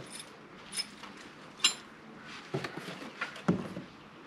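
A few light clicks and knocks from umbrella parts and packaging being handled. The loudest is a sharp, ringing click a little under two seconds in, followed by two duller knocks.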